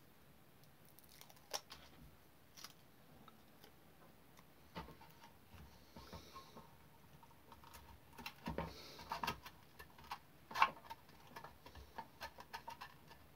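Small handling sounds as a self-adhesive strip is peeled and pressed down inside a model locomotive's tender body: scattered light clicks and taps with a couple of brief rustles. The sharpest click comes a little over ten seconds in.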